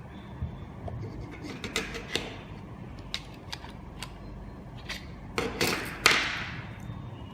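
Scattered small plastic clicks and taps of AAA batteries being handled and fitted into the KS-SF22R vehicle alarm. A sharper snap about six seconds in is the loudest, and a hiss after it fades over about a second.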